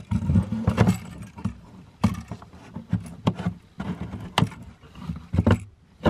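Blue plastic old-work electrical box and a wired switch-outlet combo being handled and pushed into a wooden cabinet opening: a series of sharp plastic clicks and knocks with low bumping and rustling.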